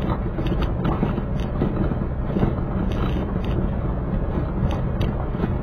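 A car driving slowly over a rough gravel dirt road: a steady low rumble of engine and tyres, with scattered light ticks of loose pebbles under the tyres.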